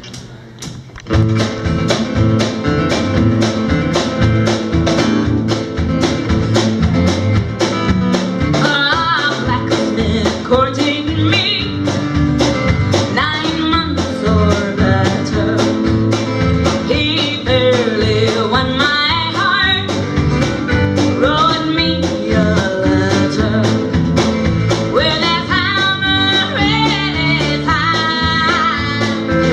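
A live band starts playing about a second in, with a steady beat, and a lead melody line comes in over it after several seconds.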